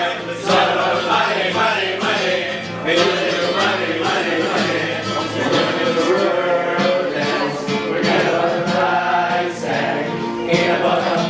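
Music with voices singing, choir-like.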